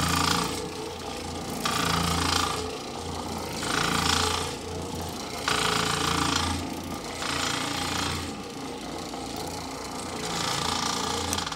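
Oreck orbital floor machine scrubbing carpet: a steady motor hum with a rattling vibration, surging louder every two seconds or so, then cut off at the very end. The rattle comes from loosened Phillips-head screws all over the machine, including those holding the main drive.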